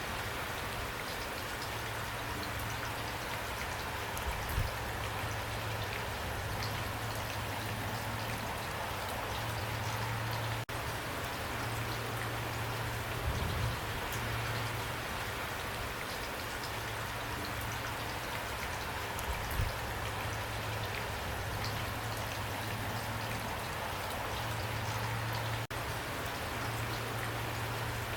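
Steady rain falling on a surface, an even patter of drops with a few louder drops or thumps scattered through it. A low hum comes and goes beneath it.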